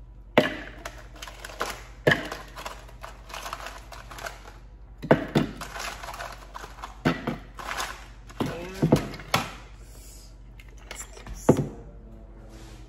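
Ice cubes tipped from a plastic container into a blender jar, clattering and knocking in about six separate bursts a second or two apart.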